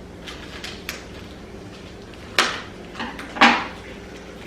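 Light clicks, then three sharp knocks close together, from things being handled on a tabletop.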